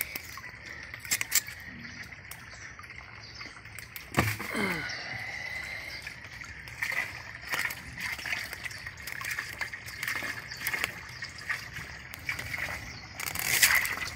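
Water splashing and sloshing as tilapia and koi thrash in the shallow water of a draining tarpaulin fish pond, with a few sharp splashes, the loudest near the end.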